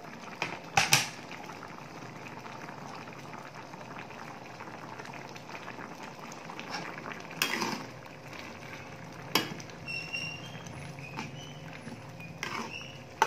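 Squid in padang sauce simmering in a wok, bubbling steadily. A spatula knocks against the wok a few times, loudest about a second in and again near the end.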